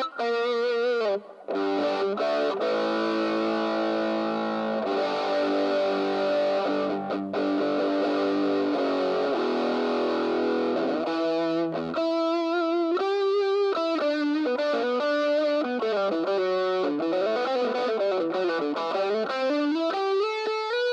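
Tokai Super Edition SD-65s electric guitar played with distortion. It holds ringing chords for about ten seconds, then plays single-note lead lines with wavering, bending pitch.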